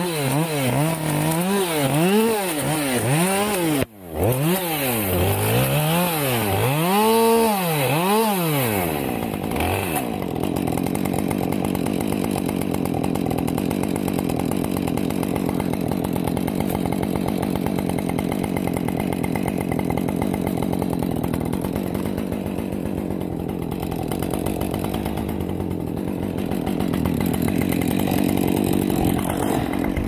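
Chainsaw revving up and down over and over, about once a second, with a brief break near four seconds; after about ten seconds it runs on at a steadier, rougher pitch.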